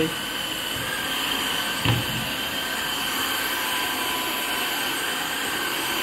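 Tineco S5 cordless wet-dry floor washer running steadily as its roller head is pushed over a tile floor, with one short knock about two seconds in.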